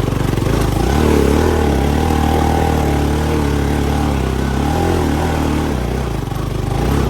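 Motorcycle engine revving hard under load as the bike climbs a muddy slope. The pitch wavers up and down with the throttle, then eases off about six seconds in.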